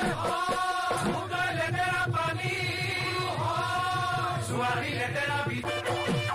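Assamese Bihu folk music: many voices chanting together in long rising-and-falling phrases over a steady drum beat.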